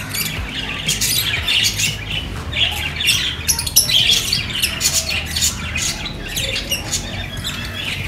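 Birds calling in a dense, continuous run of short, sharp calls, over a low steady hum.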